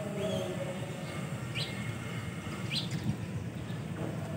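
House sparrows chirping: about four short rising chirps, roughly a second apart, over a steady low background rumble.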